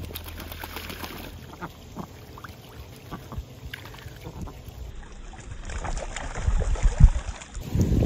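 Ducks splashing and dabbling in shallow water in a plastic kiddie pool and tubs, small irregular splashes. From about five seconds in, wind buffets the microphone.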